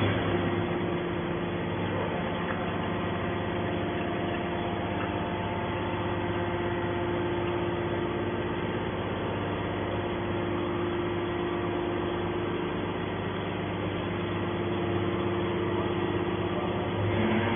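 Hydraulic scrap metal baler running, its power unit giving a steady hum with a few constant pitches.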